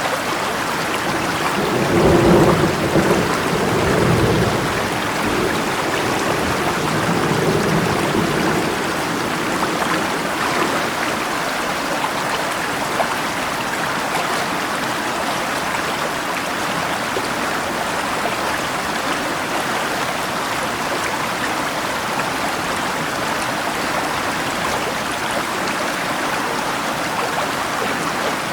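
Steady rush of rain over a flowing river. About two seconds in, a low rumble of thunder swells and dies away over the next few seconds, with a fainter roll a few seconds later.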